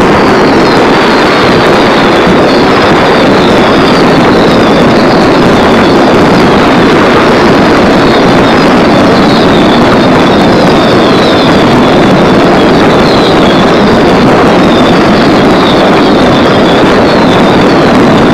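Aerial fireworks display going off in a dense, continuous barrage, the many shell bursts and crackle merging into one steady loud rumble with no single bang standing out. Short high falling whistles repeat about twice a second throughout.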